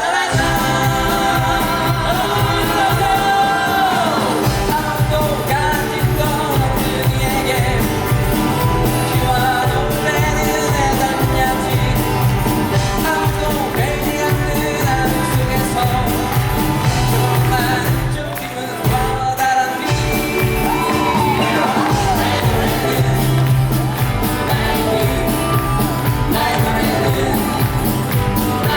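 Live singing with band accompaniment: a musical cast performing a song, the music running continuously with a brief dip about two thirds of the way through.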